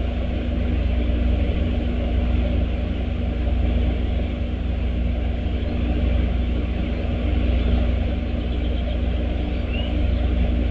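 Steady low outdoor rumble with a faint steady hum, unchanging throughout, and a single brief high chirp near the end.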